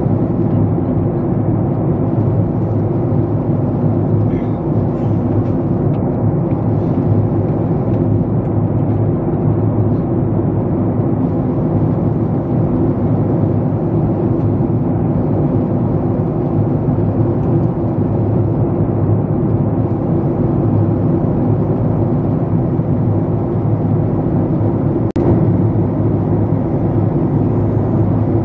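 Airliner cabin noise in cruise: a loud, steady rush of engines and airflow heard from inside the passenger cabin. A single brief click near the end.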